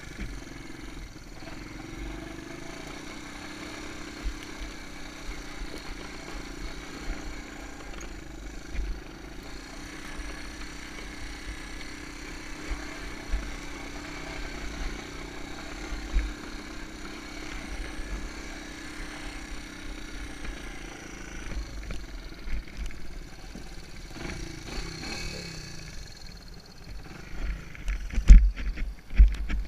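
Honda ATC 125M's small single-cylinder four-stroke engine running steadily, with uneven low rumbling underneath and a few loud thumps near the end.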